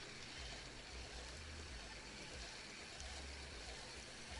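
Faint outdoor noise: wind buffeting the microphone in low, uneven rumbles over a steady soft hiss.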